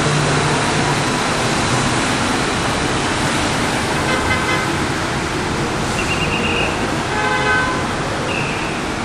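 Steady city street traffic noise from cars and scooters, with several short vehicle horn toots from about four seconds in.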